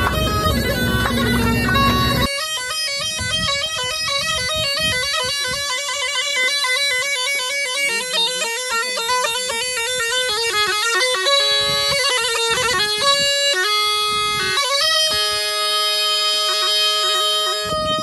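Tulum, the Black Sea bagpipe, playing a fast, ornamented melody. For about the first two seconds it is heard inside a bus over a low rumble and crowd noise, then it plays on alone.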